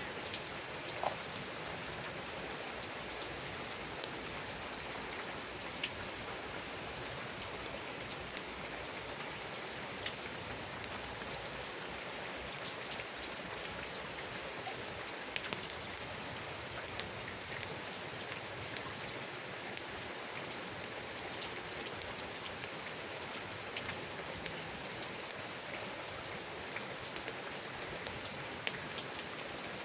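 Wood campfire burning with irregular sharp crackles and pops over a steady hiss of falling rain.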